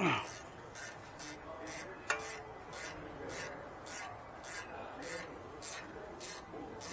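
Hand ratchet being swung back and forth to loosen the top bolt of a rear brake caliper. Its pawl gives a short rasp on each backstroke, about two strokes a second.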